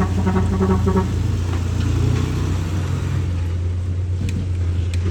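Excavator engine running steadily with a deep, even hum. A short, pulsing pitched tone sounds over it in the first second.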